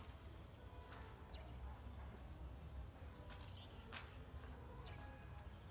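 Faint outdoor ambience: a steady low rumble of wind on the microphone, with scattered soft clicks and a few short high bird chirps.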